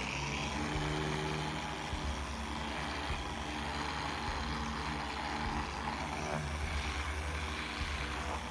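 Handheld dual-action polisher running steadily, its pad scrubbing over upholstery fabric during low-moisture encapsulation cleaning.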